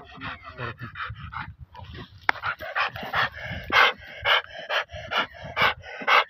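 Dog panting hard close by, its breaths quick and soft at first, then louder at about two a second. A sharp click a little over two seconds in.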